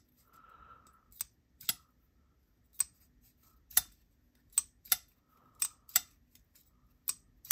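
Vosteed Valkyrie button lock folding knife being flicked open and shut over and over: about ten sharp metallic clicks, several in quick pairs, as the blade fires open into lock and snaps closed.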